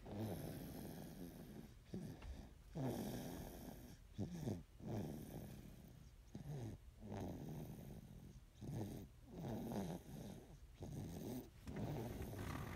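Snoring in sleep: a string of rasping snores, about one a second.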